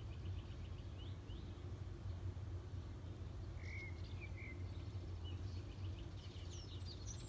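Small birds chirping and twittering in short, scattered calls, more of them in the second half, over a steady low background hum.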